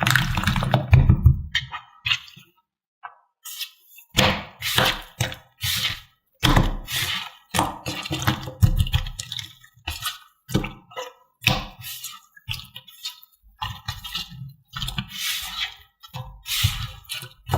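Hands playing with sensory toys: a string of irregular handling sounds and soft knocks, each a fraction of a second to about a second long, with short gaps between them.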